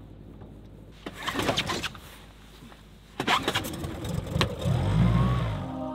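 Tohatsu outboard motor being pull-started: two hard pulls of the starter cord, then the motor catches about four and a half seconds in and runs briefly, its pitch rising and falling.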